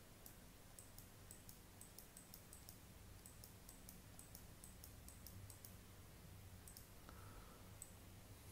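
Faint, quick clicks of a computer mouse, a few a second, over a low steady hum, with a short pause near the end.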